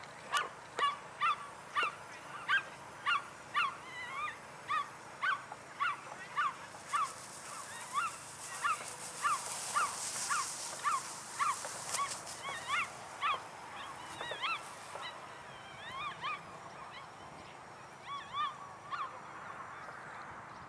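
An animal calling over and over in short, high, pitched yelps or honks, about two a second, thinning to scattered calls after about twelve seconds.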